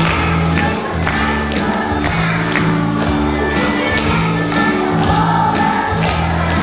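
Children singing along to a backing track with a steady beat.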